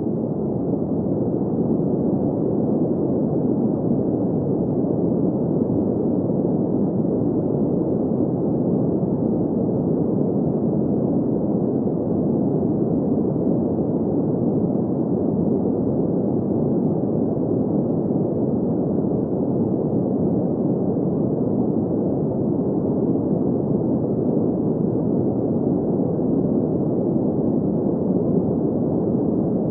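Steady, deep, even hiss of synthetic green noise for sleep, with no high end, fading up over the first second and then holding unchanged.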